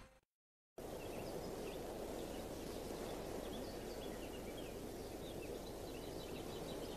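Faint outdoor ambience that starts suddenly after a brief gap of silence: a steady, even hiss with many small, scattered bird chirps.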